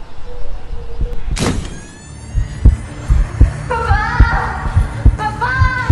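Dramatic sound-design soundtrack: a sudden loud hit with a falling sweep, then rapid heartbeat thumping. Two short wavering pitched sounds ride over the thumps near the end.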